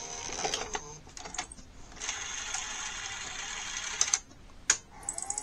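NEC SuperBeta HiFi Betamax VCR's tape mechanism running with its cover off: light mechanical clicks, then a steady motor-and-gear whir for about two seconds that stops with a click, followed by another click.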